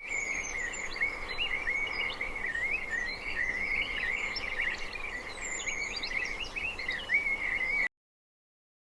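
Birds chirping and singing in a continuous chorus, with warbling calls and higher chirps over them; it cuts off suddenly about eight seconds in.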